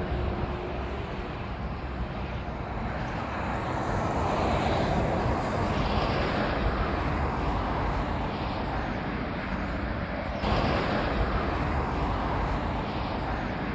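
Road traffic: a steady hum of cars passing on a main road, swelling for a few seconds as a vehicle goes by.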